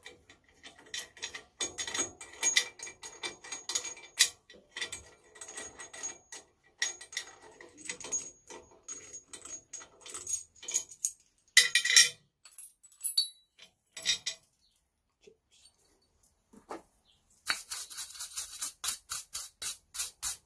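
Metal clinking and rattling as a drilled aluminium part is handled on a drill-press table strewn with swarf, with a short loud scrape about halfway through. Near the end comes a dense run of high, scratchy rattling.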